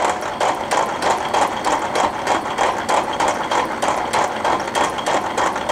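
Rhodes 7-inch metal shaper running, its ram stroking back and forth in a steady repeating rhythm as the tool takes a roughing cut across a cast aluminum workpiece, fed by hand.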